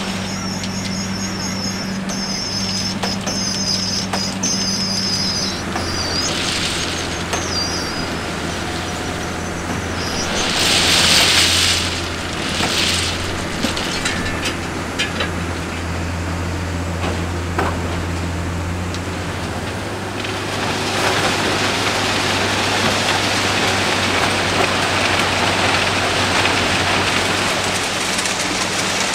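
Railway track maintenance machine at work: a steady diesel engine drone, with a warbling high whine in the first few seconds. A loud hissing burst comes about ten seconds in, another brief one follows, and the noise swells into a louder rush about two-thirds of the way through.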